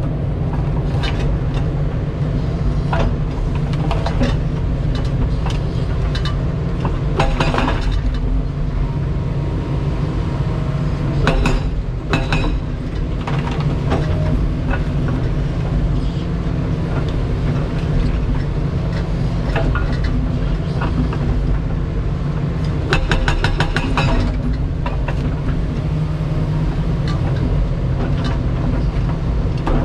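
Kobelco 350 excavator's diesel engine running steadily while its 6,800 lb hydraulic hammer breaks concrete. The hammer fires in bursts of rapid blows, near the start and again about 23 seconds in, with scattered knocks and clinks of concrete between.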